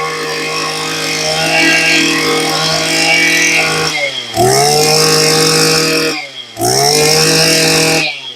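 Maruyama 26 cc two-stroke brush cutter engine running at full throttle. Twice the throttle is let off and snapped back open, the pitch dipping and climbing quickly back up each time, then released near the end. It is a test run of a used machine, showing its throttle response.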